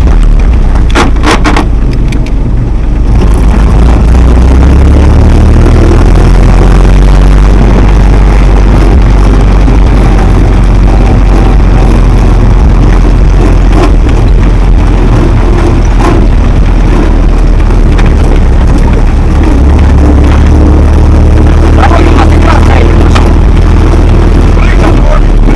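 GAZ-67 jeep's engine running loudly while driving, heard from inside the cab, its pitch rising and falling with the throttle. A few sharp knocks come about a second in.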